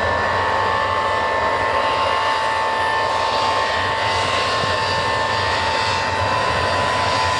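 Tupolev Tu-154M's three Soloviev D-30KU-154 turbofan engines running as the airliner taxis past: a steady high whine over a rushing noise.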